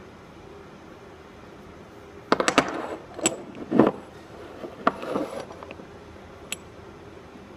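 Metal parts of a wireline conveyance wheel, the wheel and its hub, clinking and knocking together and against a tabletop as the wheel is fitted to the hub: a run of sharp clicks and a few heavier clunks starting about a third of the way in, with one last tick near the end, over a steady room hum.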